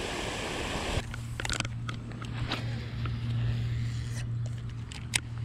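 Rushing water in the first second, then a baitcasting reel being cranked to work a topwater lure: a steady low whir with light clicks and ticks, and one sharper click near the end.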